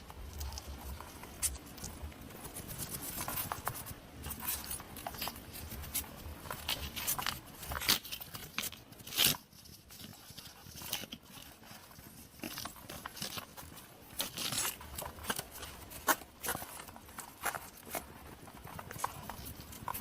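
A hedgehog making many small, irregular clicks and crunches.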